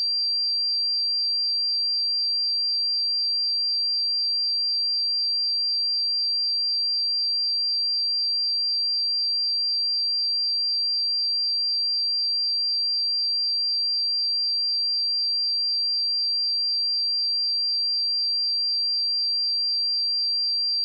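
A single pure sine-wave test tone at 4724 Hz, a steady high-pitched whistle held at one unchanging pitch and level, for checking speakers and headphones.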